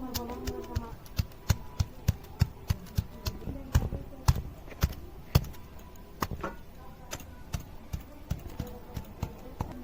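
Ginger and garlic being crushed with a stone pestle on a flat grinding stone (sil-batta): a rapid run of sharp stone-on-stone knocks, about two to three a second, louder in the first half and lighter taps after.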